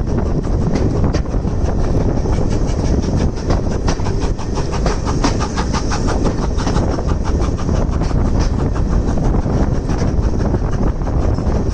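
Heritage railway train running along the track: a steady low rumble of the coaches with a rapid clickety-clack of the wheels over the rails, busiest midway.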